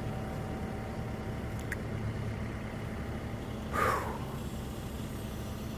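Heavy vehicle engine idling steadily, with a short hiss a little under four seconds in.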